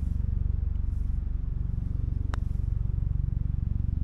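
Wind buffeting the microphone as a steady low rumble, with one sharp click about two seconds in: a putter striking a golf ball.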